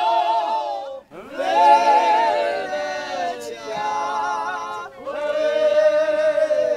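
Unaccompanied group singing in the Górale (Polish highlander) folk style: long held notes with a wavering vibrato, sung in phrases that break briefly about a second in and again about five seconds in.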